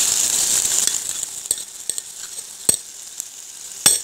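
Chicken in tomato gravy sizzling in a pan while a metal spoon stirs it. The sizzle is loud for about the first second, then dies down, and the spoon clinks against the pan four times, hardest near the end.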